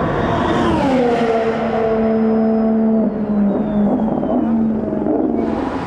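Formula 1 car engine running. Its pitch falls over about a second near the start, then holds steady, and wavers with small dips in the second half. A faint high whine slides down in the middle.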